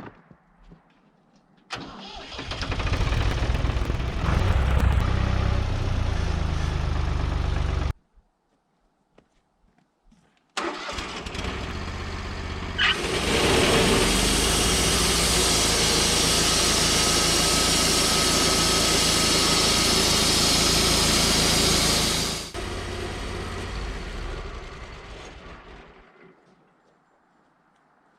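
Small engine of a portable sawmill starting and running. After a break it runs again and grows much louder with a broad rushing noise for about nine seconds, as when the saw is cutting through a log, then winds down.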